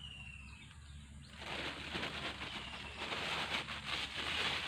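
A bird's short falling whistle, heard twice, over a loud crackly rustling noise that sets in about a second and a half in and holds to the end.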